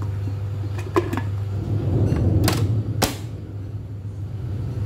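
A few sharp clicks and knocks from kitchen things being handled, the loudest about three seconds in, over a steady low hum.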